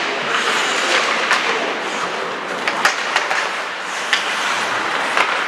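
Ice hockey play in an arena: a steady rink hubbub broken by about six sharp clacks of sticks and puck, scattered through the middle and toward the end.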